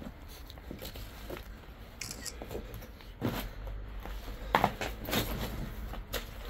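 Footsteps crunching and scuffing over debris, irregular crunches with a few louder ones in the second half, over a low steady rumble.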